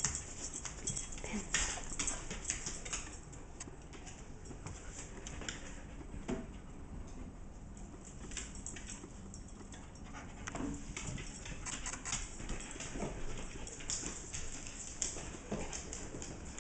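Pets playing on a wooden floor: paws and claws tapping and scrabbling in irregular clicks, with a few brief animal vocal sounds.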